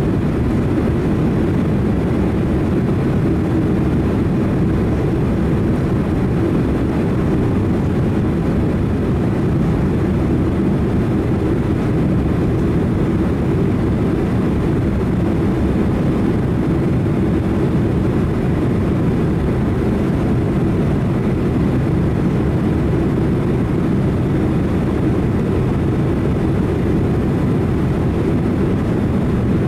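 Boeing 767-300 jet airliner's engines and airflow making a steady low rumble that holds the same level throughout.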